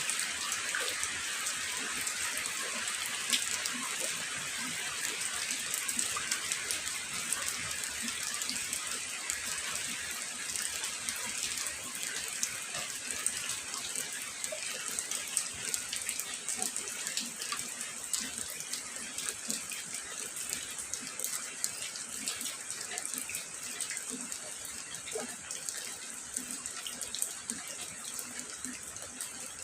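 Steady rain falling: a dense, even hiss of water with many fine drop taps, easing slightly toward the end.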